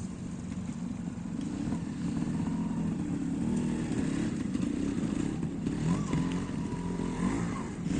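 Trials motorcycle engine running with throttle changes, its pitch rising and falling. It gets somewhat louder about two seconds in.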